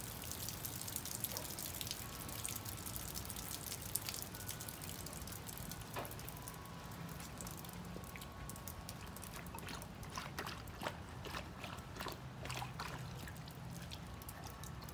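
Light rain falling, with many small irregular drop ticks and drips over a soft steady hiss.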